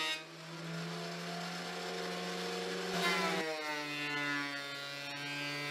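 Benchtop thickness planer running with a steady motor whine and hiss. About three seconds in, a board enters the cutterhead with a burst of cutting noise, and the motor's pitch drops under the load and then climbs back.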